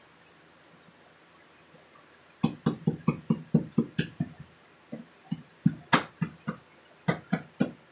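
A quick run of dull thumps, about three or four a second, starting a couple of seconds in: peel-and-stick vinyl floor tiles being pressed and knocked down onto the floor so they stick.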